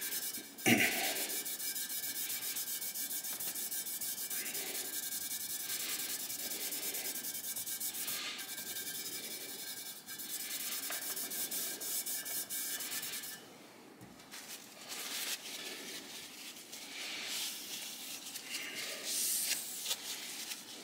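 Scotch-Brite pad rubbed briskly back and forth over a Kawasaki Z1R cast wheel rim, polishing out fine sanding scratches. Steady scrubbing for about thirteen seconds, a short pause, then more uneven rubbing.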